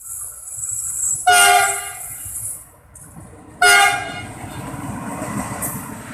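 Diesel locomotive horn sounding two short blasts, one about a second in and another about three and a half seconds in, over the low rumble of the locomotive passing on the track.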